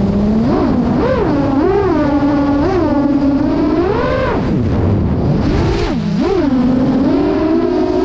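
8-inch FPV freestyle quadcopter with two-blade 8x4.5 props on 2807.5-size 1322 kV motors, recorded on board: a buzzing motor-and-prop whine that rises and falls in pitch with quick throttle punches. The longest swell comes about four seconds in, and the pitch dips low about a second later.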